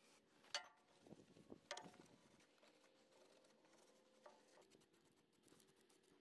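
Faint handling of small metal parts: two light metallic clinks with a short ring, about half a second and just under two seconds in, followed by soft rustling and a small tap a little past four seconds.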